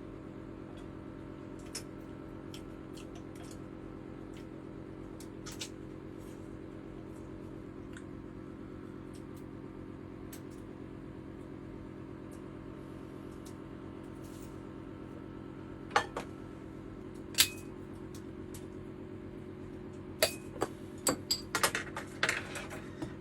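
A steady low mechanical hum, with a few sharp clicks and clinks, most of them bunched together in the last few seconds.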